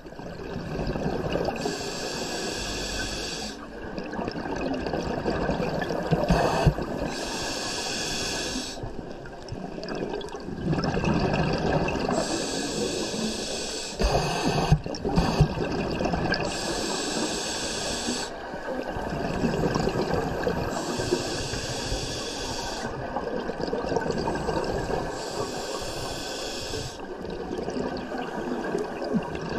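Scuba diver breathing through a regulator underwater: a hissing inhale about every four to five seconds, alternating with the rushing gurgle of exhaled bubbles.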